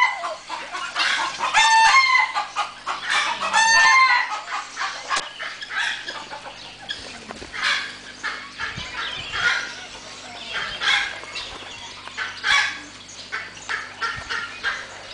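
Chickens clucking and squawking, with loud, repeated pitched calls in the first four seconds and shorter scattered calls after that.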